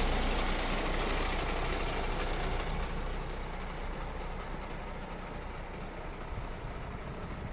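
MAN TGA 35.440 truck's straight-six diesel engine idling steadily, growing gradually quieter.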